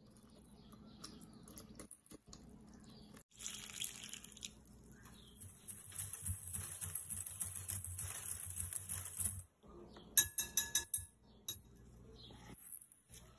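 Wire whisk beating batter in a glass bowl: a steady scratchy swishing for several seconds, then a quick run of sharp clinks about ten seconds in.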